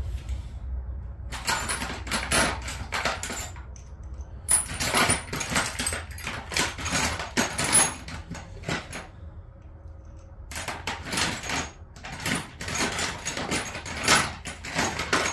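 Metal hand tools clinking and rattling as small wrenches and sockets are rummaged through, in three bouts of dense clatter with short pauses between.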